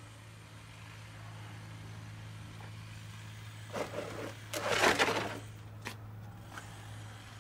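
A steady low hum, with a brief rustle of noise about four to five seconds in.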